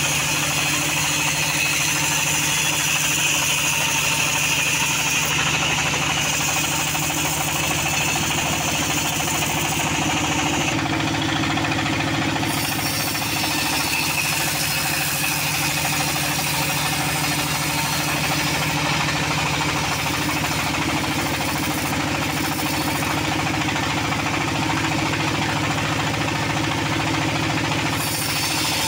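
Band sawmill running steadily, its drive and band blade humming, with a high-pitched whine that drops away about ten seconds in.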